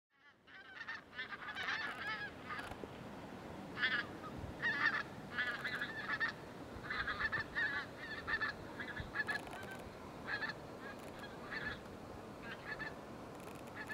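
A flock of birds calling again and again in short, wavering calls, some in quick runs, over a steady background hiss.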